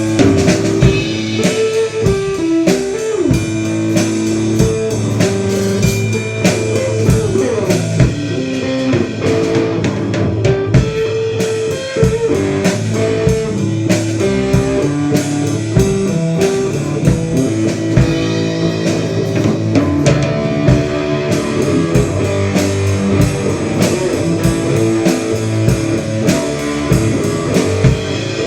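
A band playing an instrumental passage: guitar over a drum kit keeping a steady beat.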